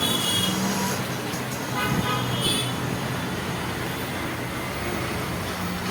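Steady road traffic noise, with a few short high toots near the start and about two and a half seconds in.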